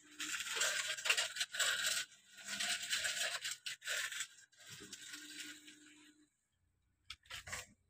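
Sand being scraped up by hand and poured into the plastic bed of a toy dump truck: a run of scraping rushes, softer after about four seconds, then a couple of light clicks near the end.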